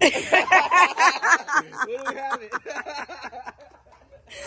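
Laughter: a run of quick, rhythmic pulses, loudest at the start and dying away over about three seconds.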